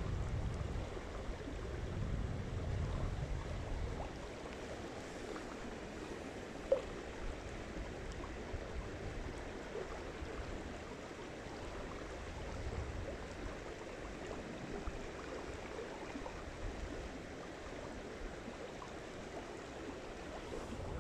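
Steady trickling and lapping of water, with a low rumble in the first few seconds and a single sharp click about seven seconds in.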